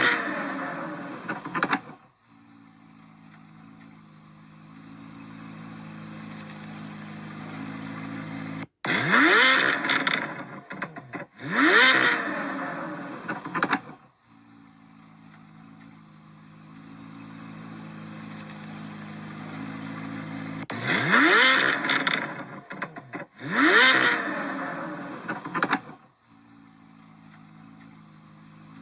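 C8 Corvette Z06's 5.5-litre flat-plane-crank V8 exhaust, blipped in quick throttle revs that shoot up in pitch and fall straight back. One comes near the start, then two pairs a couple of seconds apart, with a steady, burbling idle in between.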